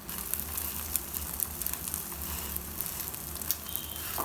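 Prawn-and-egg omelette frying in hot oil in a pan, the second side cooking after the flip: a steady sizzle with scattered small crackles. A low steady hum runs underneath.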